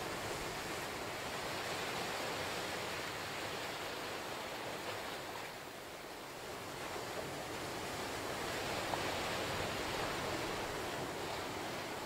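Ocean surf on a sandy cove: small waves breaking and washing up over the sand and around lava rocks, a steady hiss that eases about halfway through and builds again.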